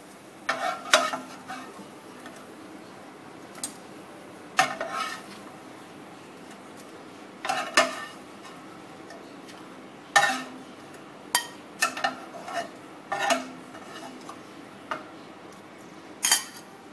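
Spatula scraping and knocking against a Happy Call double flip pan as cooked prawns are lifted out, in a string of sharp clicks and scrapes a second or two apart, over a faint steady sizzle.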